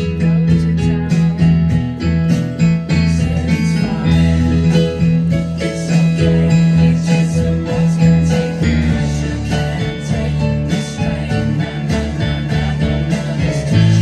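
Yamaha synthesizer keyboard played with both hands: long held bass notes under quick, busy chords and melody.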